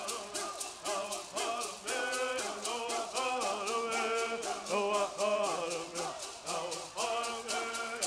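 Bird singing: a group of men sing together in unison, their melody rising and falling in short phrases, over a steady shaking of gourd rattles at about five or six strokes a second.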